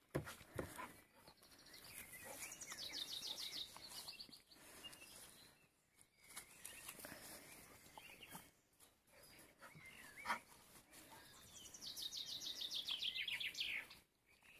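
A songbird sings twice, each song a fast high trill of quickly repeated notes that drops in pitch at the end, once about two seconds in and again near the end. A few sharp knocks sound in between, the loudest right at the start and about ten seconds in.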